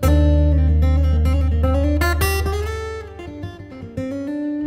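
Background music: acoustic guitar playing plucked notes over a low held bass, the bass dropping away about three seconds in.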